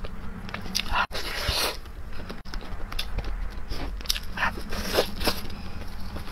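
Close-miked chewing and wet mouth sounds from eating braised pork knuckle, mixed with soft tearing and handling sounds as gloved hands pull the meat apart. The sounds come irregularly, with a denser stretch about a second in and another cluster past the middle.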